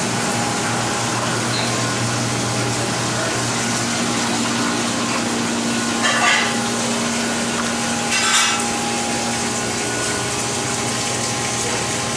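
Steady rushing hum of kitchen machinery, with two brief handling sounds about six and eight seconds in as a large bigeye tuna is worked on the cutting board.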